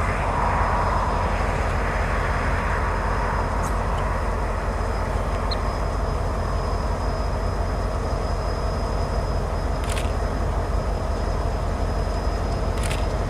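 Freight train running by with a steady low rumble of diesel locomotive and wheels on rail, with a few faint clicks near the end.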